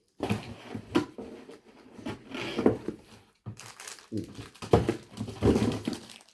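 Crinkling and rustling of snack packaging as it is handled, in a run of irregular bursts.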